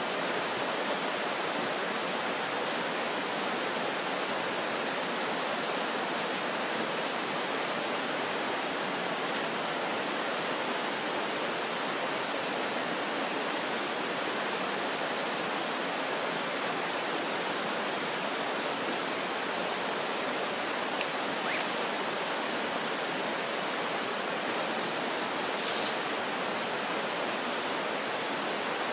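Steady rushing of running water, an even wash of noise that does not change, with a few faint clicks.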